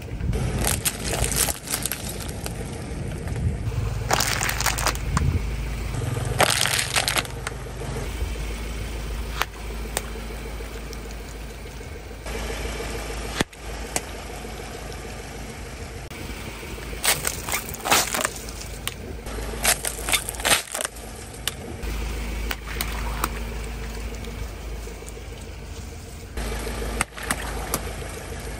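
Car tyre rolling slowly over plastic bags of gel water beads on asphalt, crushing them in several bursts of crackling and popping, over the low running of the car's engine.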